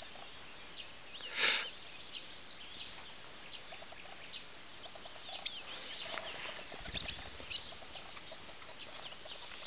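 Fledgling fieldfare giving short, high, sharp calls, three loud ones spaced three to four seconds apart, with a short harsh sound about a second and a half in. Other birds chirp and sing faintly in the background.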